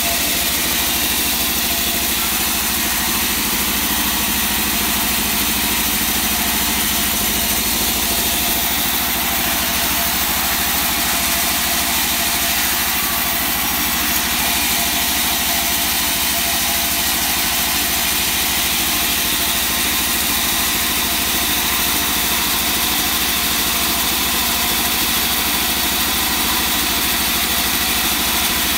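Large band resaw running and ripping a slab of hard wangkal wood lengthwise: a steady, even machine noise with most of its sound high-pitched.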